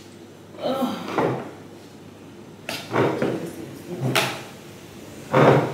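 Tableware knocking and clinking on a glass-topped table: a few separate knocks and sharp clicks of cutlery, plates and glasses, the loudest a heavy knock near the end.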